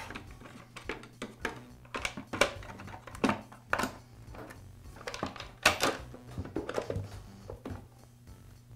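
Plastic top cover of a chainsaw being fitted and pressed into place on the saw's body: a series of irregular clicks and knocks, the loudest about four and five and a half seconds in.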